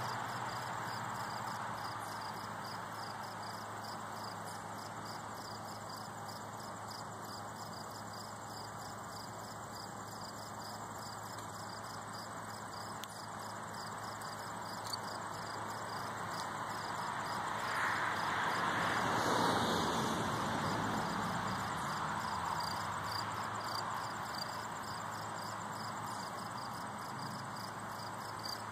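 Outdoor ambience: insects chirping in a steady pulsing rhythm over a constant hiss of distant traffic, with a vehicle passing about two-thirds of the way through, swelling and then fading with a falling pitch.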